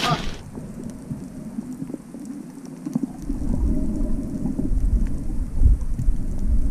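A splash into the sea, then muffled underwater sound as the microphone goes under: everything goes dull about half a second in, leaving a low rustle of bubbles and moving water. About three seconds in, a deep churning rumble comes up.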